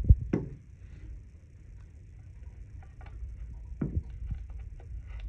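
Handling noise of an Edgun Leshiy 2 air rifle being lifted and turned over in gloved hands: scattered light clicks and knocks of its metal and plastic parts, the loudest right at the start and just before four seconds in.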